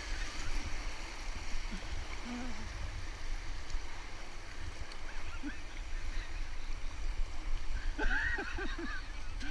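Steady rush of a whitewater river rapid heard from a kayak, with a low rumble underneath. A person's voice calls out near the end.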